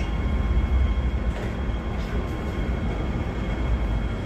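Hong Kong MTR M-Train, a Metro-Cammell electric multiple unit, running with a steady low rumble and a faint steady high whine.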